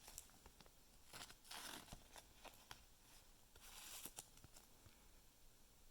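Faint rustling and light clicks of trading cards and pack wrappers being handled, in two short soft bursts.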